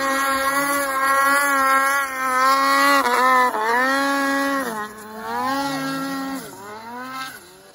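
Snowmobile engine running at high revs on a steep powder climb, holding a steady high pitch. Its revs dip and climb back a few times in the second half as the throttle is worked, and it fades near the end as the sled rides away.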